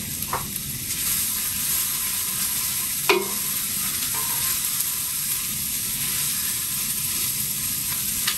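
Onions, carrots and celery sizzling steadily in oil in a large stainless steel stockpot as they are stirred, softening on their way to caramelizing. One sharp knock about three seconds in.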